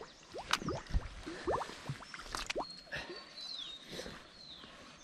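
Water dripping and plopping as a wet fishing net and rope are pulled up out of the water onto a bamboo raft: a scatter of short drips and small splashes, loudest in the first couple of seconds and thinning out after.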